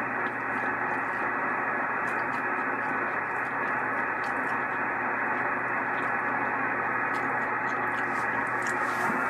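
Steady hiss of band noise from a 6-meter amateur radio transceiver's speaker, with no station coming through between transmissions.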